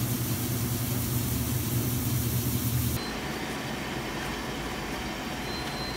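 Corn mill grinding nixtamalized blue corn into masa: a steady machine hum with a grinding hiss over it. About three seconds in it changes to a quieter, duller steady machine noise.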